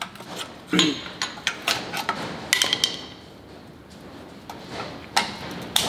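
Screwdriver and needle-nose pliers clicking and tapping on the parking brake shoe retaining clips and pins: a string of sharp metallic clicks and knocks, one with a brief metallic ring about two and a half seconds in.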